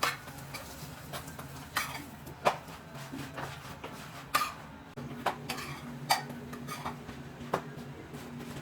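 Kitchen dishes and metal utensils clinking and knocking at irregular intervals over a steady low hum, as food is handled and heated.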